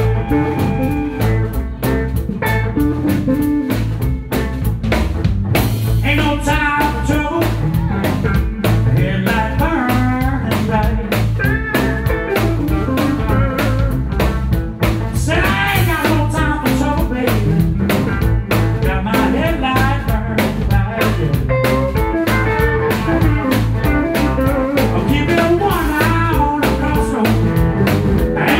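Live blues band playing: electric guitars, bass guitar and drum kit, with a wavering lead guitar line over a steady beat.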